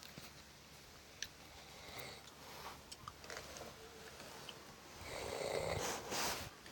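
Snoring in sleep: quiet breathing at first, then one long, louder snore about five seconds in.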